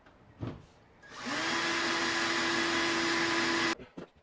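Electric drill with a depth stop spinning up and running steadily for about two and a half seconds as it bores a shallow hole into the wardrobe panel, its whine rising briefly at the start, then stopping suddenly. A light knock comes before it.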